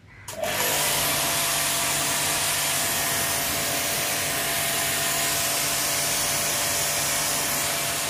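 StarQ W3 portable electric pressure washer kicking in about half a second in, then running steadily: the motor and pump hum under the loud hiss of the high-pressure water jet.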